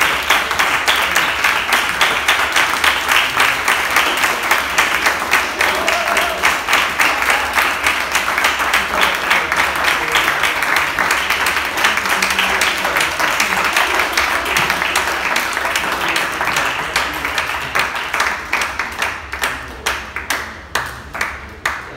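Audience applauding, the dense clapping thinning near the end to scattered separate claps.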